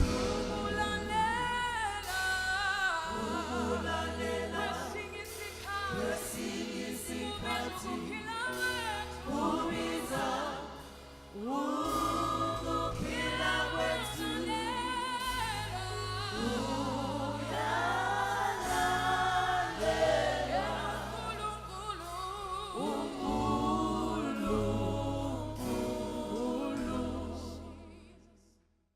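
Gospel song with singing voices over held bass notes, fading out near the end.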